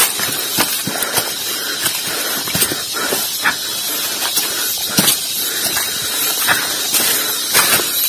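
Footsteps crunching and scuffing through dry fallen leaves as several people walk a forest trail, with irregular crackles at walking pace.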